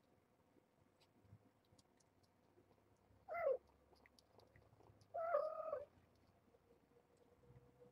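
Adult mother cat meowing twice, calling to her kittens: a short call falling in pitch, then a longer, steadier one about two seconds later. Faint small ticks in between.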